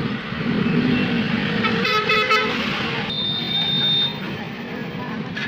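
A vehicle horn honks briefly about two seconds in, over steady background noise. About a second later a thin high steady tone sounds for about a second.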